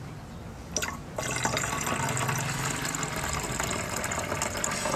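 Liquid poured from a plastic tub into the narrow neck of a plastic pump-sprayer bottle, filling it with a steady splashing pour that starts about a second in, just after a brief knock.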